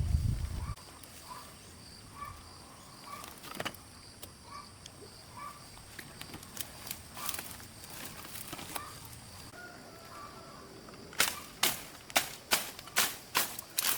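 Scattered light clicks and taps, then about eleven seconds in a quick run of sharp knocks, roughly two a second.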